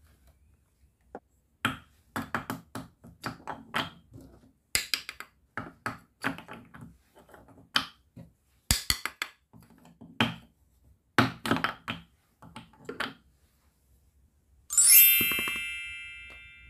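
Small plastic toy food pieces and toy kitchenware clicking and clattering as they are handled and set down, in an irregular run of light knocks. Near the end a loud, bright ringing chime sounds once and fades away slowly.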